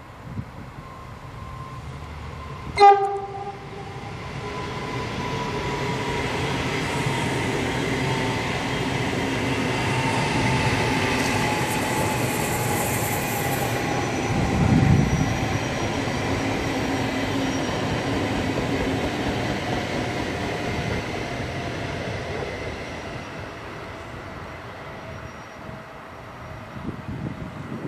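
A train horn sounds one short blast about three seconds in. Then an electric regional train runs past with a long rumble that swells and fades, carrying a whine that slowly falls in pitch.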